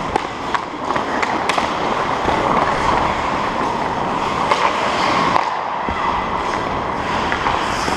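Hockey skate blades scraping and carving on rink ice as the player skates, a steady hiss, with a few sharp clacks of sticks and puck.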